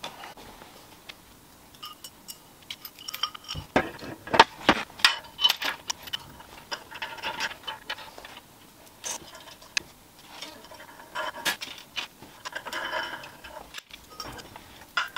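Tools and metal parts being handled on a workbench: scattered clicks and clanks, with a cluster of sharp knocks about four seconds in and short spells of scraping.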